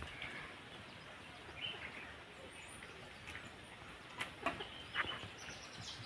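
Outdoor farmyard ambience: birds chirping and chickens clucking in short, scattered calls, with a few louder clucks about four to five seconds in.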